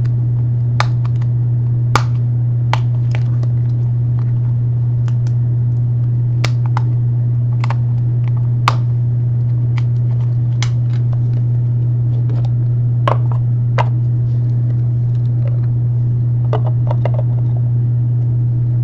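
Trading cards and their packaging being handled: scattered sharp clicks and light crackles over a steady low hum.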